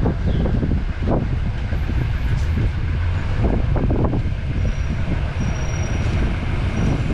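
Outdoor street ambience: a steady low rumble with a few irregular knocks, and faint high thin tones in the second half.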